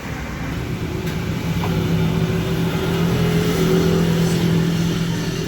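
A motor running at a steady pitch, a low hum that swells louder through the middle and eases slightly near the end.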